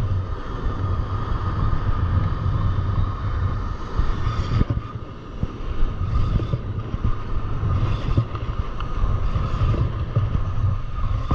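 Wind buffeting the microphone over breaking surf, with a Daiwa spinning reel being cranked as line is wound in.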